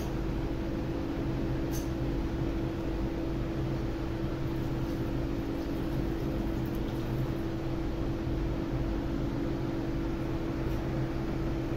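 A small electric motor humming steadily at an even level, with no change in pitch or loudness.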